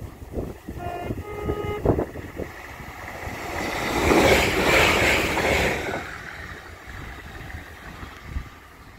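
Transport for Wales Class 197 diesel multiple unit sounding its two-tone horn about a second in, a short high note then a longer low one, then rushing past close by, loudest around four to five seconds in. Wind buffets the microphone throughout.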